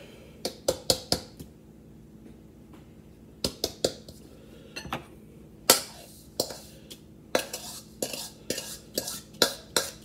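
A utensil knocking and clinking against a mixing bowl in irregular strokes as creamed butter and sugar is scraped out of it. There is a lull of about two seconds soon after the start.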